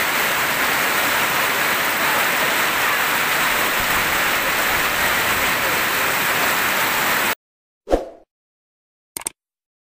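Heavy rain pouring onto and streaming off a corrugated roof, a steady, loud hiss of water that cuts off abruptly about seven seconds in. A short pop and then two quick clicks follow from a subscribe-button animation.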